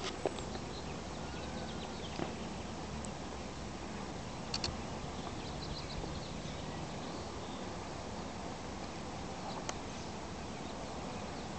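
Quiet outdoor ambience: a steady low background hiss with a few faint brief ticks, two of them close together about halfway through.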